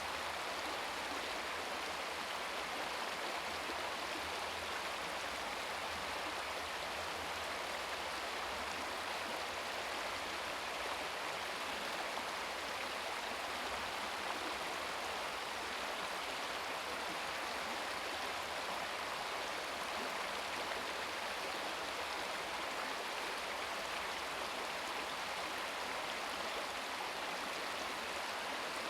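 Shallow brook babbling over rocks: a steady, even rush of running water.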